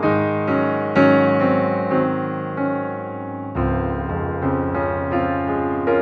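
Background piano music, notes struck in an even rhythm.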